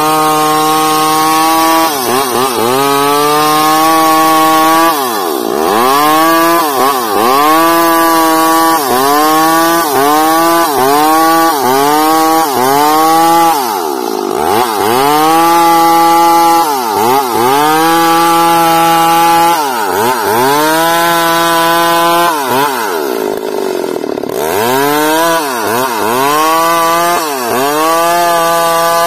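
Chainsaw ripping a bayur log lengthwise into rafter stock. The engine runs loud and continuous, its pitch dipping and climbing back about once a second as the cut loads and unloads it.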